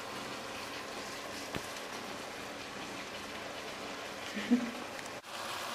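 Steady sizzling of beef chunks browning in hot olive oil in a cast-iron pot. About four and a half seconds in there is one brief voice-like sound.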